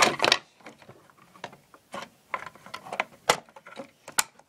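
Irregular hard-plastic clicks and knocks as a Roomba 650's cleaning head module is handled and pried open by hand.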